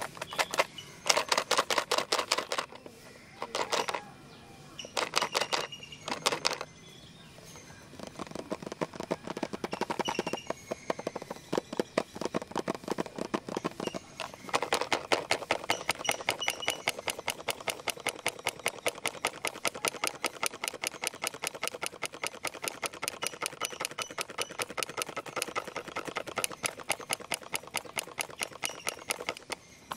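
Fingernails rapidly tapping and scratching on a plastic pencil box, first in short bursts and then, from about halfway through, as a fast, steady, unbroken run of clicks.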